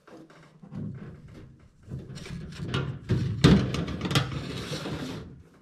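Clinks and knocks of steel automatic-transmission parts being handled on a table: a 4L60E input drum and its snap ring being moved and set down. The knocks come thickest and loudest about three and a half seconds in.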